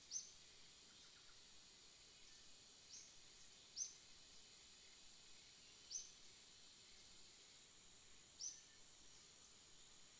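Faint outdoor ambience: a steady high insect drone, with about five short high chirps spread through it, the loudest near the start and about four seconds in.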